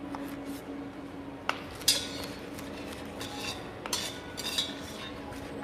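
Kitchen knife chopping carrots on a wooden cutting board: irregular knocks mixed with metallic clinks of utensils and pots, over a steady low hum.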